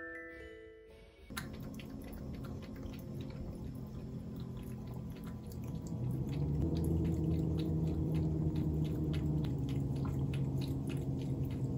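Ragdoll cat lapping water from a ceramic bowl: quick, regular laps, about three or four a second, over a steady low hum.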